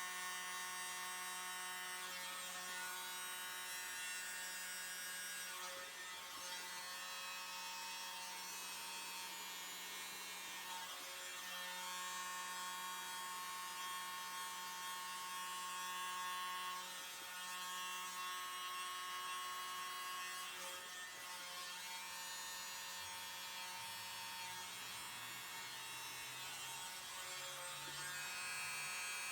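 A tiny handheld electric blower running with a steady buzzing hum, its motor pitch shifting slightly now and then as air is blown across wet acrylic pouring paint.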